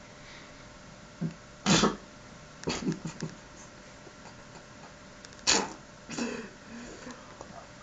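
A person snoring: short harsh snorts from the throat and nose, in two rounds about four seconds apart, each a loud snort followed by a few weaker ones.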